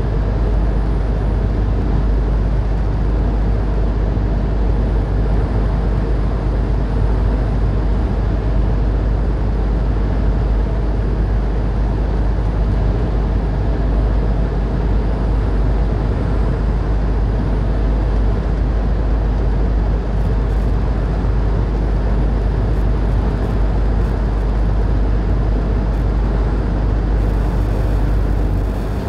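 Semi truck cruising at highway speed, heard inside the cab: a steady deep engine drone with tyre and road noise.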